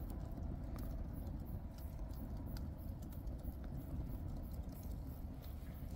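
Burning cardboard and scrap wood crackling, with scattered sharp pops over a low steady rumble. A katydid calls in the background as a fast, regular, very high-pitched pulsing.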